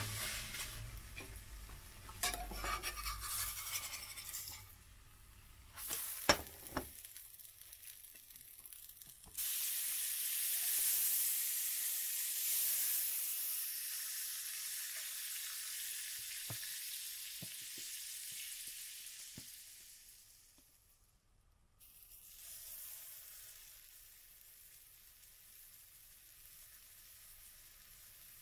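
Fat sizzling and spitting in a hot frying pan, starting abruptly about nine seconds in, then slowly fading and dropping out briefly before going on more quietly. Before it come a few knocks and scrapes of a utensil against the pan, the loudest a sharp knock about six seconds in.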